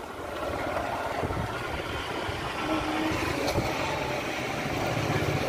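Steady engine and road rumble of a moving vehicle, growing a little louder about halfway through.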